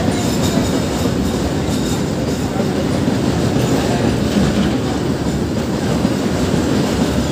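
Goods train of rail tank wagons rolling past on the track, a steady low rumble.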